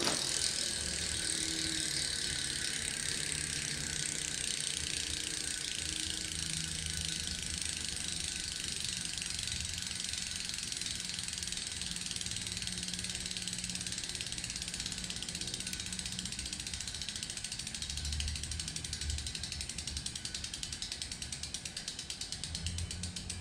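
Meijun bicycle wheel's freehub pawls clicking rapidly in a continuous buzz as the wheel spins, the clicks growing slightly more distinct toward the end.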